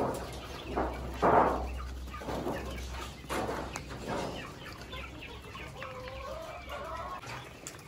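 A flock of caged laying quail calling: separate short calls about once a second, then a run of quick pitched notes around six seconds in.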